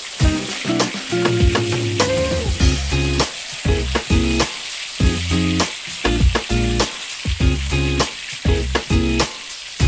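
Breaded chicken nuggets frying in hot oil, a steady sizzle with frequent crackles. Background music plays along with it.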